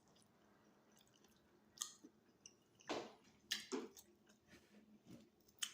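Faint chewing with a few short, wet mouth smacks, spaced about a second apart.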